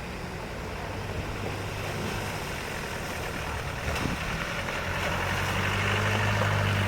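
Off-road 4x4 vehicle's engine running, growing louder over the last few seconds, with a single knock about four seconds in.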